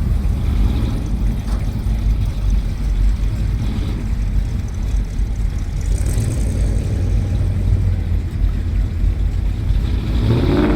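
Big-block V8 engines of classic cars rumbling low and steady. Near the end one engine note rises and falls as a car goes by.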